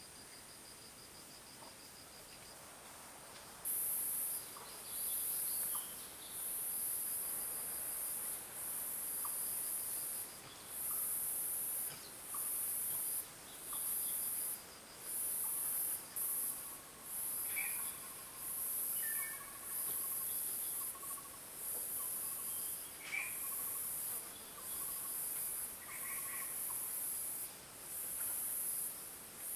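Insects calling: a loud, high buzz that starts a few seconds in and comes in repeated bursts of about a second each, over a fainter steady high trill. A few faint short chirps are heard in the middle of the stretch.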